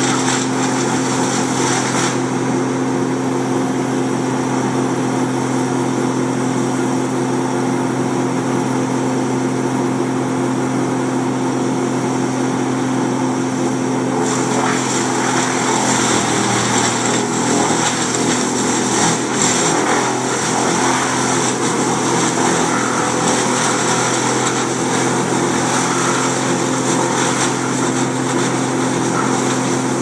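Heavy tree-service equipment engines running steadily: the grapple crane truck and wood chipper at work. About fourteen seconds in a harsher, noisier layer joins the engine note, and the pitch dips briefly just after.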